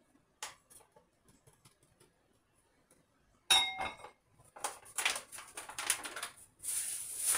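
Faint taps, then a sharp metallic clank of cookware with a brief ring about three and a half seconds in, followed by a plastic food packet crinkling and rustling as it is handled.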